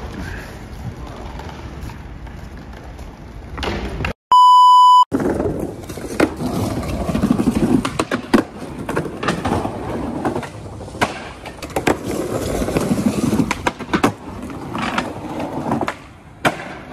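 Skateboard wheels rolling over pavers and a wooden deck, with sharp clacks of the board from pops and landings several times. About four seconds in, a loud electronic beep lasts nearly a second.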